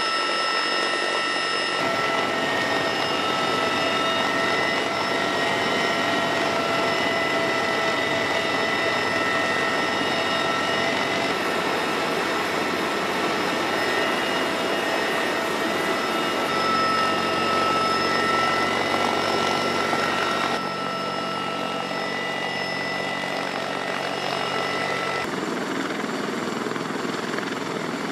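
CH-53E Super Stallion heavy helicopter running: a loud steady rotor and engine din with several steady high whining tones over it. The mix changes abruptly a few times.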